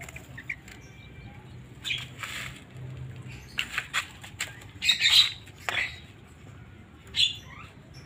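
Young yellow-vented bulbuls fluttering and scrabbling against the bars of a bamboo cage in a few sudden bursts, the loudest about five seconds in, with one or two short harsh calls.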